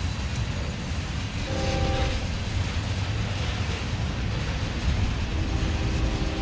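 Freight cars of a passing train rolling by, a steady low rumble of steel wheels on rail. A brief chord of steady tones sounds about a second and a half in and comes back near the end.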